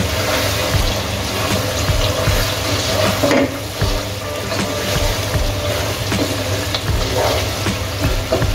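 Thick beef curry sizzling in its oil in a pot while a spatula stirs through it, with soft knocks from the spatula against the pot.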